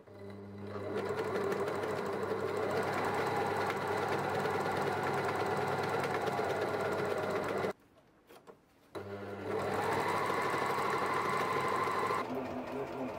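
Juki four-thread overlock serger running, stitching and trimming a fabric edge. It climbs in pitch as it comes up to speed, stops for about a second two-thirds of the way through, then starts again and speeds up once more.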